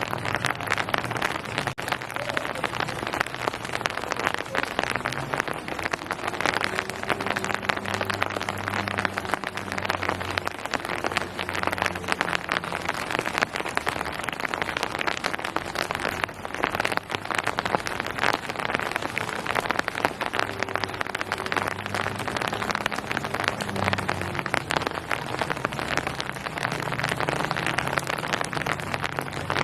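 Steady rain pattering densely on surfaces, a continuous crackle of many small drops. Under it, a faint low hum swells and fades twice, about a quarter of the way in and again past two-thirds.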